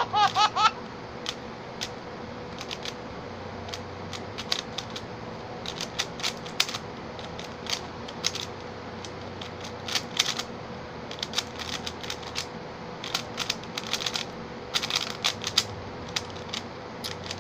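Xin Lexin stickerless 3x3 speed cube being turned fast by hand: quick irregular clicking and clacking of the plastic layers, in flurries with short pauses between them.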